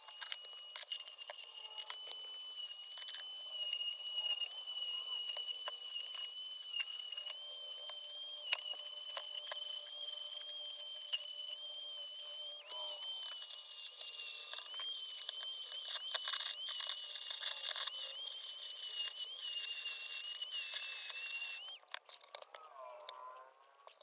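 A small high-speed electric power tool, such as a drill or rotary tool, running with a steady high-pitched whine and scattered ticks. It switches off about 22 seconds in and winds down with a falling tone.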